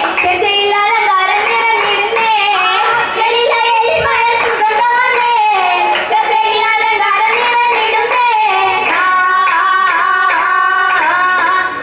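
Girls singing a Mappila oppana song in unison, with sharp hand claps keeping time.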